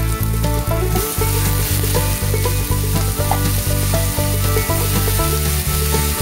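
Stir-fry sizzling in a hot oiled pan as broccoli florets go in with beef and onion, the hiss starting about a second in. A spatula stirs the pan, and background music with a steady bass line plays over it.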